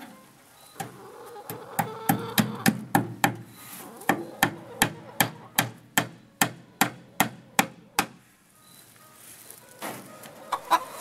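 Hammer tapping fasteners to fix half-inch wire mesh to a wooden frame: a run of sharp, evenly spaced taps, about three a second, starting a second or two in and stopping about three seconds before the end.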